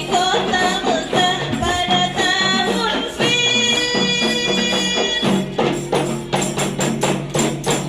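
Rebana frame-drum ensemble playing a sholawat tune, with a high melody line over the drums. A long held note comes about three seconds in, and after it the rebana strokes come through in a quick, even beat.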